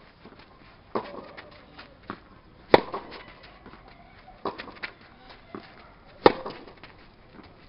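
Tennis rally: sharp racket-on-ball hits, the two loudest a little under three and a half seconds apart from the nearby player, with fainter ball bounces and the opponent's distant returns between them.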